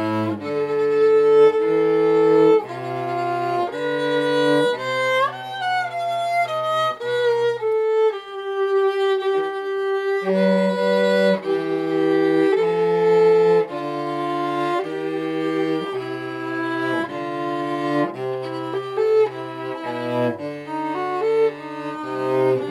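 Violin and cello duet: the violin plays the melody over bowed cello bass notes. About eight seconds in the cello drops out while the violin holds a long note, and the cello comes back about two seconds later.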